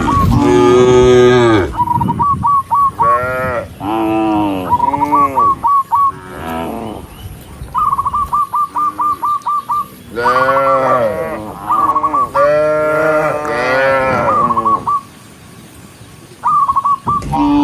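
Several cows mooing over and across one another, long drawn-out moos one after another. Between the moos come repeated runs of quick, short high-pitched notes, and the calling drops away briefly near the end.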